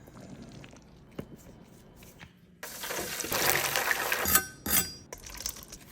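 Kitchenware clinking and rattling: a few light clicks at first, then from about halfway a denser stretch of scraping noise with sharp metallic or glassy clinks that ring briefly.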